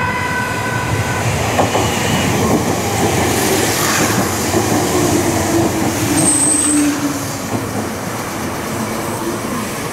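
Meitetsu 5000 series electric train sounding a horn note that cuts off about a second in, then running past at speed with loud wheel and rail noise. A brief high squeal comes about six seconds in, and the sound fades toward the end.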